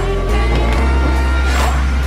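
Background music: sustained bass notes with a sharp percussive hit at the start and another about a second and a half later.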